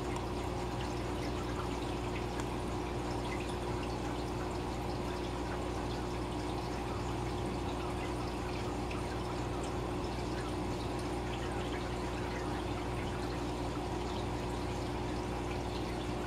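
Steady bubbling and trickling of aquarium aeration from an air-driven sponge filter and a bubble curtain, with many small pops over a steady low hum.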